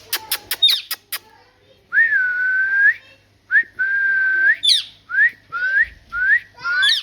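A pet parrot whistling: a quick run of clicks first, then two long steady whistles that rise at the ends and several short rising whistle notes, with brief high chirps between them.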